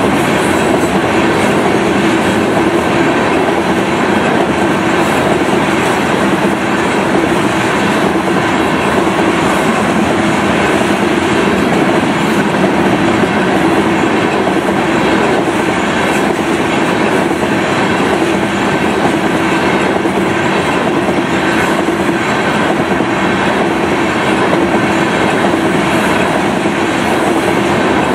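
A train of loaded tank cars rolling steadily past at close range, its wheels rumbling and clacking on the rails without a break.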